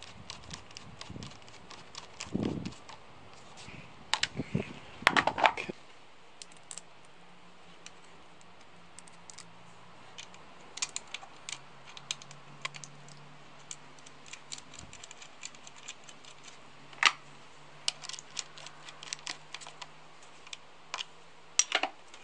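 Irregular small clicks and taps of metal and plastic parts being handled and slotted together while an outboard motor's control cables and linkage are refitted by hand. There is a cluster of louder knocks in the first six seconds and another about two-thirds of the way through.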